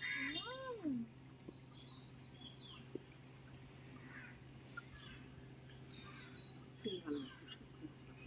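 A cat meowing near the start: one drawn-out call that rises and falls in pitch, followed by faint high chirps of small birds.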